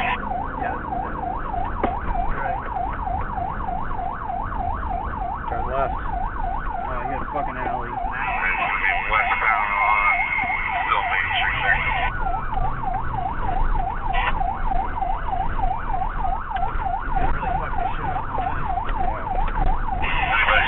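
Police car siren in fast yelp mode, its pitch rising and falling several times a second without pause, over the patrol car's engine and road noise. A second, slower-sweeping siren sounds faintly behind it at times.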